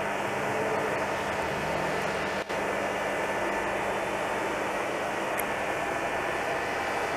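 Steady mechanical hum and hiss with a few constant tones, cut by a brief dropout about two and a half seconds in.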